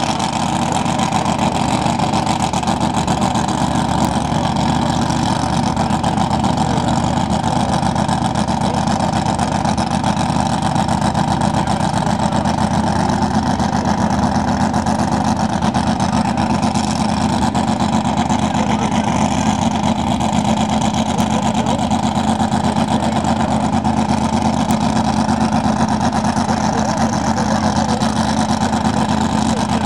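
Jet sprint boat's injected V8 engine idling loud and steady on its trailer, with an unbroken, even tone that does not rise or fall.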